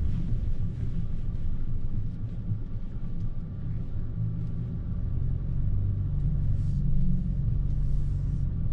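Low, steady rumble of the Ford Ranger Raptor's 2.0-litre bi-turbo diesel and drivetrain as the truck is driven.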